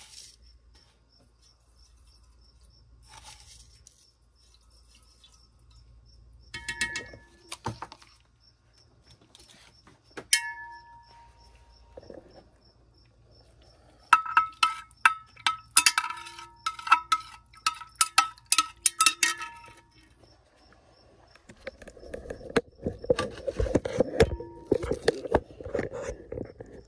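A glass stirring rod clinks against the inside of a glass beaker as lye solution is stirred into silver chloride to turn it into silver oxide. There are a couple of ringing clinks about a quarter of the way in, then a quick run of them in the middle, and a longer stretch of rougher scraping noise near the end. A cricket chirps steadily behind.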